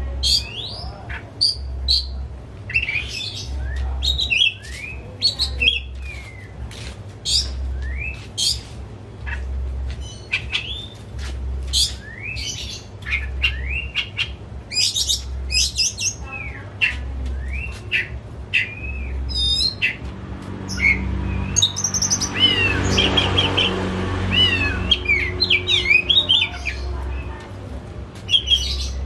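Oriental magpie-robin singing in full, agitated song: a fast, unbroken string of varied sweeping whistles, chirps and squawks, with a louder, harsher run of notes about three quarters of the way through.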